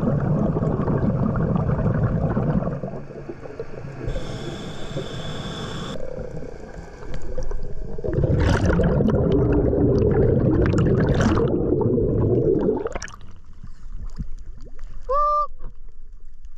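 Scuba diver breathing underwater during a safety stop. Two long rushes of exhaled bubbles from the regulator, at the start and again from about 8 to 13 seconds, with a quieter hiss between them, then a short honk-like squeak near the end.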